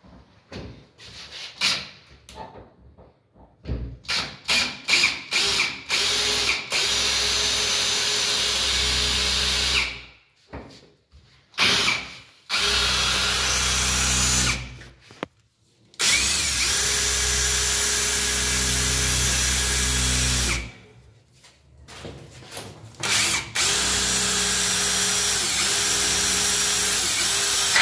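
Cordless drill boring into a door lock cylinder with a metal bit: a few short trigger pulses, then runs of several seconds each with pauses between. At one point the bit jams as a spring-loaded pin drops into the hole being drilled.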